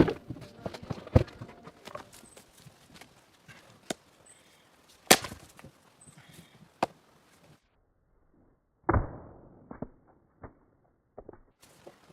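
Firewood being chopped by hand: a handful of separate sharp wooden strikes a few seconds apart, with quieter knocks between them.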